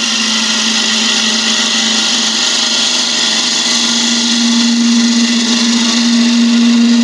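Laguna 1836 wood lathe running with a steady hum while a turning tool cuts the spinning spalted beech blank, giving a steady hiss of cutting over it. The hum grows louder about four seconds in.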